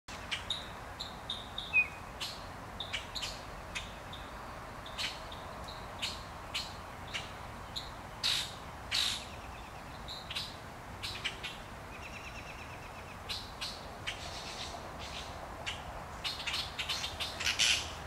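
Common grackles giving many short, harsh chack calls and higher chirps as they mob a crow to drive it away from their nests. The calls come irregularly, a few a second at times, and crowd together near the end.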